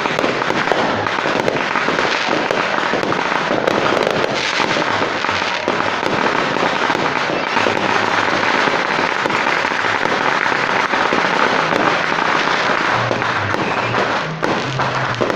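Aerial fireworks going off in quick succession: a dense, unbroken stream of bangs, pops and crackling, with a brief dip in loudness about fourteen seconds in.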